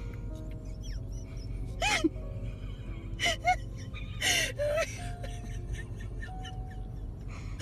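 Background music with sustained notes, over which come a few short, breathy vocal sounds with a bending pitch, about two, three and four and a half seconds in.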